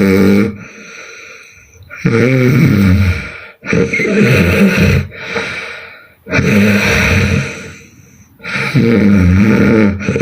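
A young woman snoring loudly in her sleep. Each snore is a rough, pitched sound of a second or more that bends in pitch, and they come about every two seconds, with quieter breathing between.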